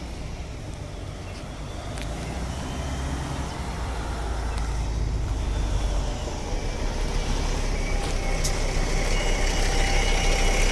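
City bus engine running, with a low rumble that grows steadily louder as the bus approaches and draws up. A thin, high steady tone comes in near the end.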